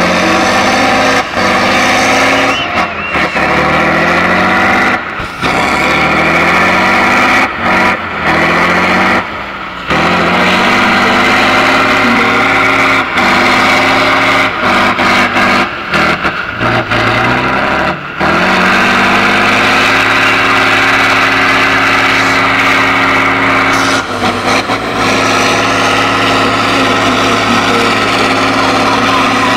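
Heavy off-road trial truck's engine under load on a steep side slope, revving up again and again in the first half, then held at a steady high rev from about two-thirds of the way in. The sound cuts out briefly several times.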